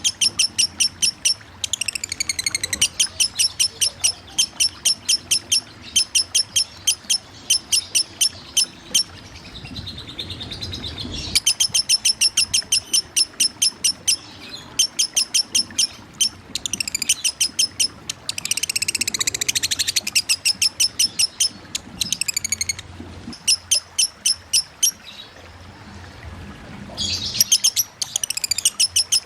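Lovebird ngekek: long runs of rapid, sharp repeated chattering notes lasting several seconds each, broken by short pauses, with a few gliding calls, over a faint background of running water.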